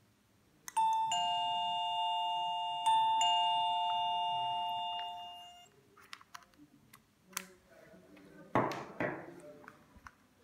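Electronic two-tone ding-dong chime from a digital peephole viewer's doorbell, a high tone then a lower one, sounding twice about two seconds apart and fading out over a few seconds. Afterwards come light clicks and a brief rustle of the unit being handled.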